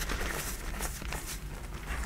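Hands squeezing and crumbling soft black reformed gym chalk: a run of soft, irregular crunches and powdery rustles, over a steady low hum.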